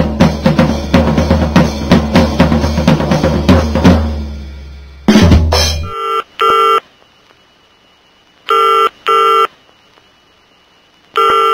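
Fast drum-kit music that fades out around four seconds in, a short loud musical sting just after five seconds, then an electronic telephone ringing in pairs of rings, three pairs about two and a half seconds apart.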